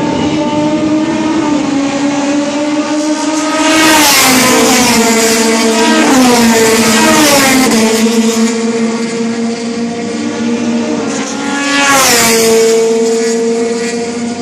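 Turismo Nacional touring race cars running at speed, several engine notes overlapping and shifting in pitch. Two loud pass-bys, about four seconds in and again near the end, each with the engine pitch dropping sharply as the car goes by.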